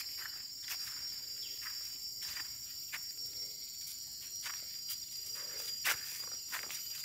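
Steady high-pitched drone of insects, with irregular crunching footsteps on dry fallen leaves and sandy ground. One footstep, about six seconds in, is the loudest.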